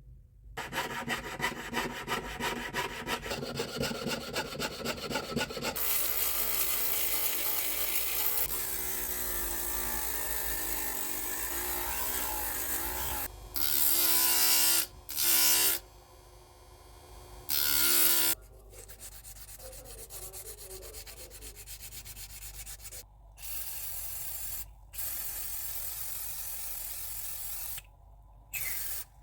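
A run of short abrasive workshop clips on a small metal axe head: quick even rubbing strokes, then steadier rubbing, a few short loud passages with a shifting pitch partway through, and quieter rubbing again, each clip cut off abruptly.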